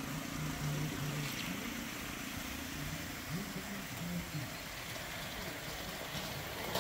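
Coal-fired gauge 1 live-steam model locomotive running by with its train, its steam exhaust a steady hiss, with faint voices in the background.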